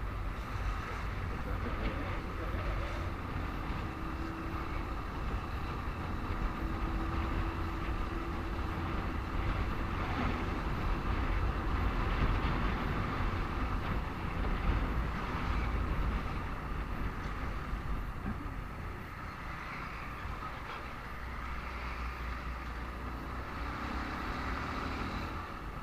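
Motorcycle engine running at low speed in heavy road traffic, with a steady low rumble of passing vehicles and wind on the microphone; it gets slightly quieter in the last third.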